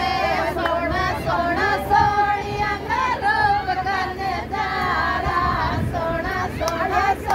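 A group of women singing a Rajasthani sithna, the teasing wedding folk song sung at the in-laws, in one unbroken melodic line.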